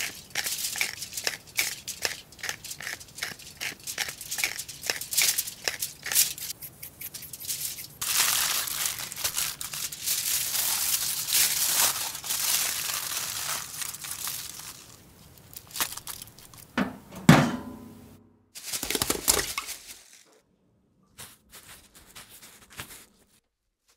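Hand spice grinder twisted in a quick run of clicks, then aluminium foil crinkling steadily as it is folded around a steak. A single loud knock follows near the end.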